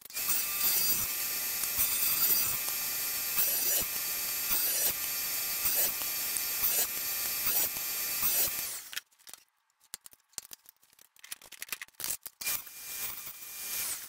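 Table saw running and ripping narrow wood strips, a steady motor whine with repeated louder swells as pieces are fed through. It stops abruptly about nine seconds in, leaving only faint clicks and rattles.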